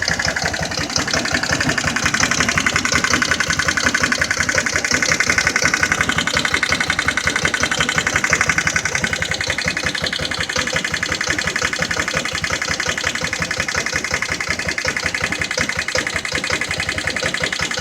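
Jonway Xpressway 250cc engine running steadily with a fast, even beat, a little louder for several seconds before it settles back. This is the engine running after first repairs on a machine that would not start at all before.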